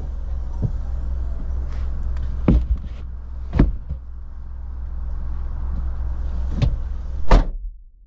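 Knocks and thumps of items being set into the cargo area of a 2024 Chevy Trax, then the rear liftgate shutting with a loud thud near the end, over a steady low rumble.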